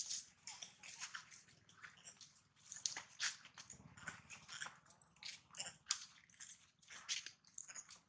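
A baby long-tailed macaque giving short, high-pitched squeaky cries in quick irregular bursts.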